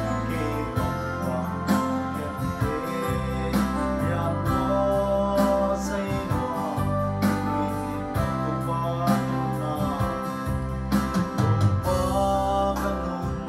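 A man singing a hymn to a Yamaha electronic keyboard accompaniment, with sustained bass notes and a steady beat.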